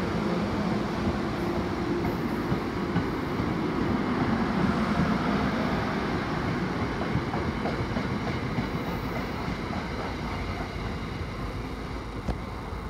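NJ Transit commuter train's passenger cars rolling along the rails in a steady rumble that peaks a few seconds in and fades as the rear cab car draws away. A single sharp click comes just before the end.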